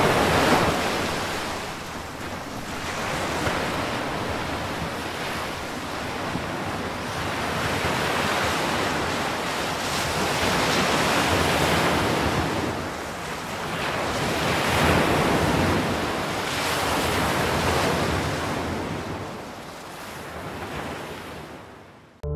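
Ocean surf: waves breaking and washing up a beach, the rush swelling and ebbing every few seconds and fading out near the end.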